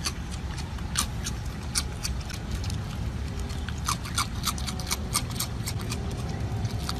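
Raccoon crunching dry ring cereal taken from a hand: a run of sharp, irregular crunching clicks over a steady low rumble.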